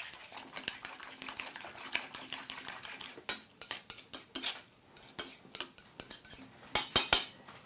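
A utensil stirring a wet mixture of shrimp, egg white and green onion in a stainless steel bowl: a string of light clinks and scrapes against the metal, busier in the second half, with the sharpest taps near the end. The mixing is gentle, so the egg white does not foam.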